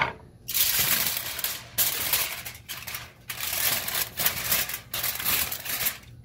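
Aluminium foil crinkling and rustling in bursts as hands fold it over a steak into a loose tent.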